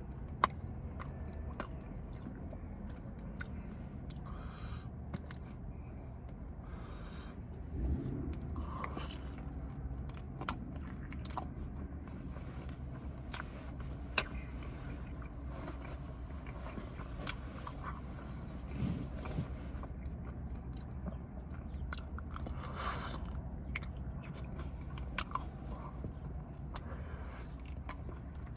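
A person chewing and biting food, with scattered small clicks and crunches over a steady low hum.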